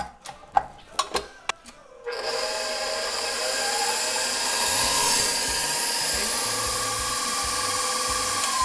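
A few knocks and clicks as the bowl and wire whisk are set on a KitchenAid stand mixer. About two seconds in, the mixer's motor starts and runs with a steady whine, its pitch rising at first as it comes up to speed, whipping egg yolks and sugar.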